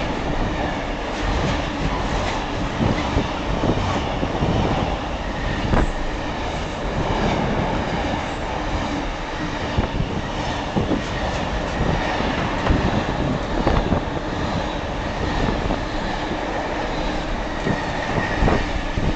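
Slow freight train of intermodal wagons rolling past. Its wheels make a steady rumble with repeated clacks over the rail joints.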